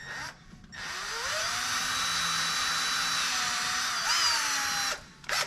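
Power drill running for about four seconds, speeding up as it starts, drilling a pin hole through the crankshaft hub, with a short blip of the drill just before and another just after.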